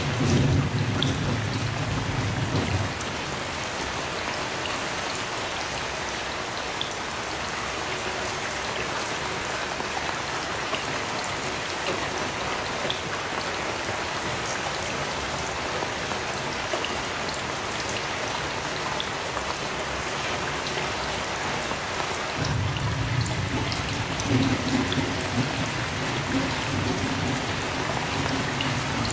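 Steady heavy rain. A low thunder rumble fades out about three seconds in and a new one starts about twenty-two seconds in.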